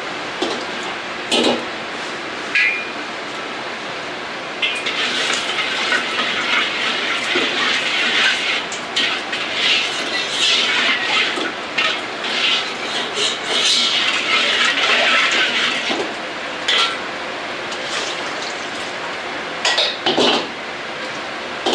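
Hot carbon-steel wok on a gas wok burner, with the burner's steady rush throughout. From about five seconds in to about sixteen, a stretch of crackling sizzle as liquid hits the hot pan. A steel ladle clinks on the wok a couple of times near the start and several times near the end.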